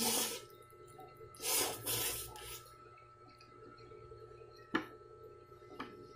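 A person slurping spicy fried instant noodles off a fork: a short slurp at the start and a longer one about a second and a half in, then quiet chewing with two sharp mouth clicks near the end.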